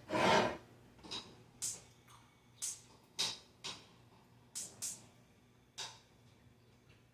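A string of about eight short, sharp clicks and rustles from kitchen handling.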